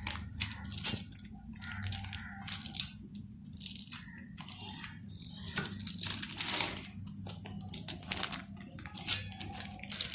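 Plastic sheet and aluminium foil crinkling in irregular rustles as rice-flour dough balls are pressed flat between the sheets with a steel tumbler and the top sheet is peeled away, with occasional light clinks of the steel tumbler.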